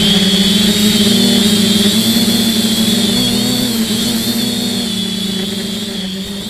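FPV quadcopter's motors and propellers whining steadily, the pitch wavering slightly with throttle changes, growing gradually quieter toward the end.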